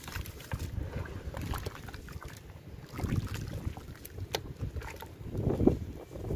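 Hands churning and squeezing soaked, crumbled pieces in a tub of muddy water: uneven sloshing with small splashes and drips, and a louder slosh about five and a half seconds in.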